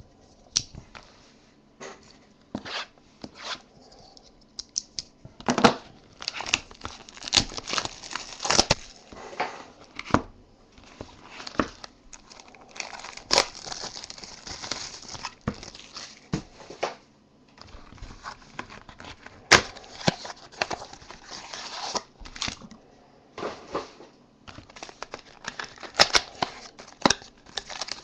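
Hands handling a trading card box and its foil-wrapped packs: irregular crinkling and tearing of wrappers, with rustles and small taps of cardboard.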